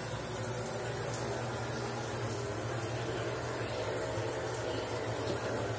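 Steady rushing of running water with a low, even hum under it, echoing in a small tiled shower room.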